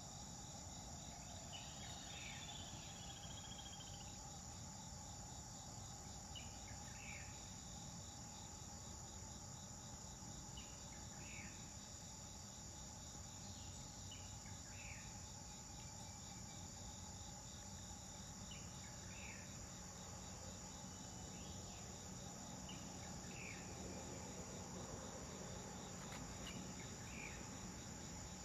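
A steady outdoor chorus of insects: a continuous high buzz over a faster pulsing trill. Short paired chirps repeat every two seconds or so.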